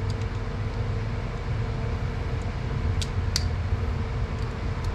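Steady low mechanical hum with a faint constant tone, broken by two sharp light clicks about three seconds in, typical of small parts being handled during hands-on car work.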